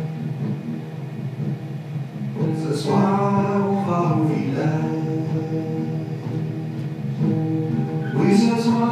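Music with singing: a song over steady held chords, a singing voice coming in about two and a half seconds in and again near the end.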